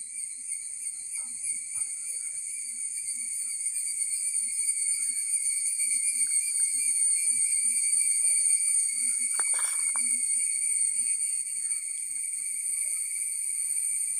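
Steady, high-pitched drone of an insect chorus that swells to its loudest about halfway through and then eases a little. A brief knock comes about nine and a half seconds in.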